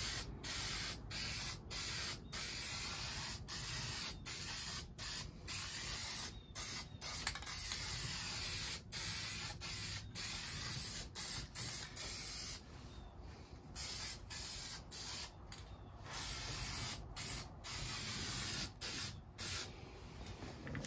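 Aerosol spray-paint can of gloss black spraying in many short bursts of hiss, with a longer break a little past halfway through.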